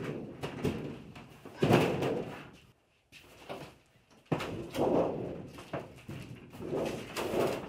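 Irregular knocks, thumps and rattles as a large curved interior wall panel is pushed up overhead and worked into place by hand, with several loud clusters of knocking.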